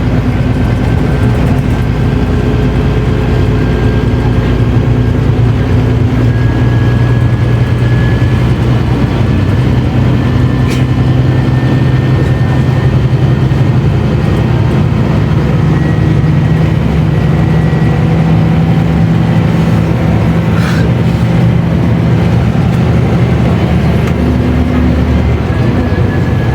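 Mercedes-Benz O500U city bus with ZF automatic gearbox, its diesel engine running steadily under way, with a thin high whine above the engine note. Two brief clicks sound about a third and three quarters of the way through.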